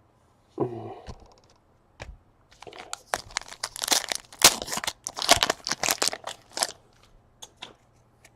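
Plastic card-pack wrapper being torn open and crinkled, a dense irregular crackle that starts about two and a half seconds in and lasts around four seconds, loudest in the middle, followed by a few light ticks of handling.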